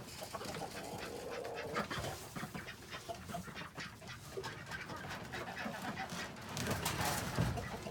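Hens clucking in a coop, with many short clicks and rustles throughout.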